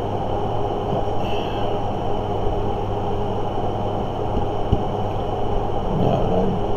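Steady low rumbling background noise with a constant hum underneath.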